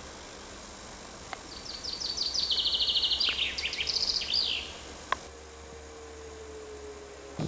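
A songbird sings one phrase of about three seconds: a quick run of high notes that turns into a trill, then a few falling notes. A steady background hiss lies under it.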